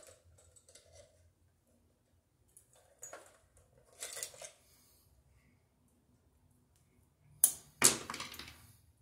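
Hands working electrical cable and a wire stripper: scattered soft rustles and clicks, then two sharp snaps close together near the end as the strippers bite through the wire insulation.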